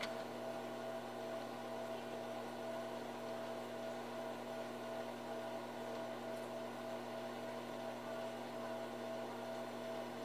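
Steady electrical hum with a thin higher whine above it, unchanging throughout.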